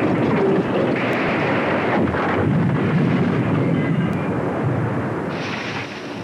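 Aircraft engine noise with wind rush: a loud, dense, steady rumble that eases slightly near the end.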